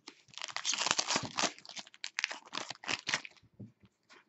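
Foil wrapper of a 2015-16 SP Authentic hockey card pack being torn open and crinkled by hand: a dense crackling that thins out near the end.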